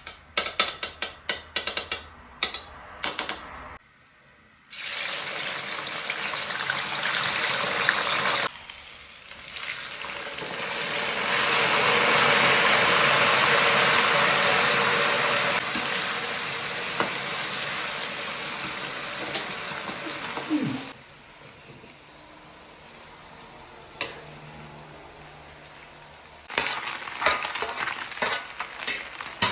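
Food sizzling in hot oil in a pan. The sizzle starts suddenly about five seconds in, swells louder, then dies away about two-thirds of the way through. Sharp clinks and knocks of utensils on cookware come at the start and again near the end.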